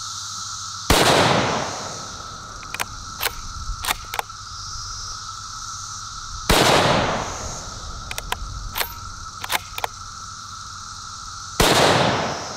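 Three rifle shots from a Savage Axis .308 bolt-action rifle, about five seconds apart, each a sharp bang with a roughly one-second echoing tail. Between shots come several short metallic clicks of the bolt being worked to chamber the next round.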